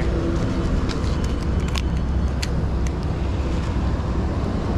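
Steady low rumble of road traffic, with a few light clicks about one to two and a half seconds in.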